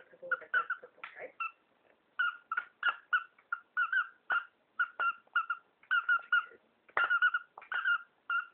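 Shiba Inu puppy giving short, high squeaky whimpers, about three or four a second, in runs with brief pauses between them.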